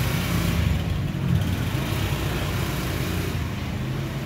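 Small motor scooter engine running steadily at low speed as it pulls away, its low hum easing slightly near the end.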